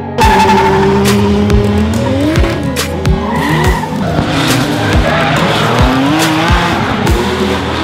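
Drift cars in a tandem run, engines revving up and down at high rpm through the slide with tyres screeching, over background music with a steady beat.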